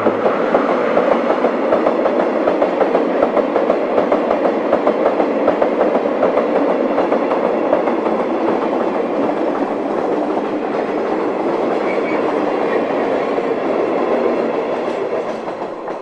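Hopper wagons of a limestone freight train rolling past, their wheels clattering over the rail joints in a steady stream of knocks. The clatter fades away near the end as the last wagon moves off.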